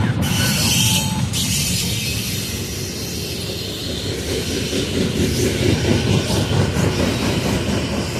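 Freight cars of a passing garbage train rolling by: a steady rumble of wheels on the rails with clacking over the rail joints, and a high wheel squeal that is strongest in about the first second.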